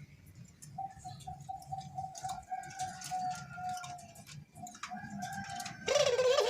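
Puter dove cooing: a long, rolling coo that begins with pulses and then holds steady, with a louder, wavering call coming in near the end. Faint clicks sound throughout.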